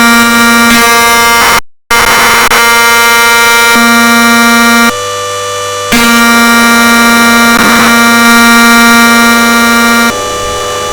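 Washing machine on a very-high-speed spin cycle: a very loud, steady buzzing whine at a fixed pitch. It cuts out for an instant about two seconds in, drops in loudness for about a second around five seconds in, and drops again near the end.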